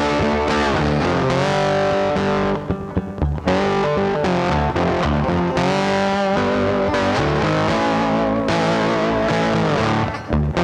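Background music led by distorted electric guitar, with sustained bending notes over bass.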